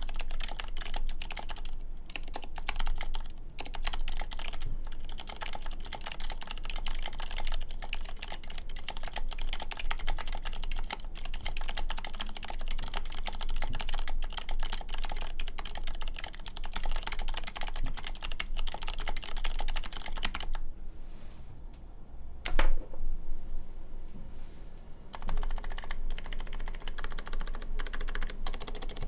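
Steady typing on a 4GT Sabre mechanical keyboard with Cherry MX2A Silent Red linear switches on an aluminum plate: quick, continuous keystrokes. About two-thirds of the way through the typing thins out and one louder single stroke stands out, then fast typing resumes.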